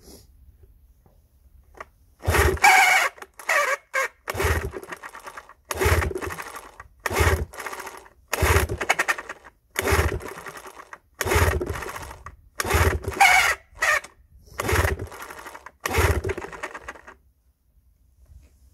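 1976 Evinrude 6 hp two-stroke outboard cranked over by its pull-start rope about a dozen times, roughly one pull every second and a half, starting about two seconds in. Each pull is a short mechanical burst and the engine does not start: it is being turned over for a compression test, with a gauge in place of the top cylinder's spark plug.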